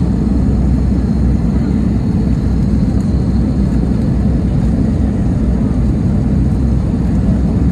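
Cabin noise inside an Airbus A320neo on approach: the engines and the airflow over the fuselage making a steady, deep rumble that stays even throughout.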